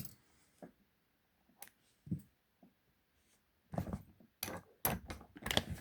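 A just-opened laminated steel padlock and its picking tools being handled: a few scattered small metallic clicks, then a busier run of clicks and rattles over the last two seconds.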